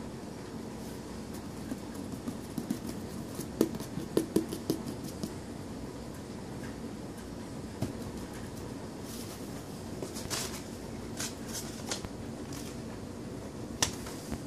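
Paper scraps in a cardboard box being rustled and scratched by hand: a scatter of light taps and crinkles in the first few seconds, then several crisp rustles later on and one sharp tap near the end, over a faint steady hum.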